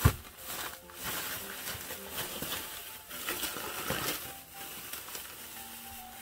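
Thin plastic bag crinkling and rustling as it is handled, gathered and knotted, with a thump at the start as the bagged bundle is set down on the table.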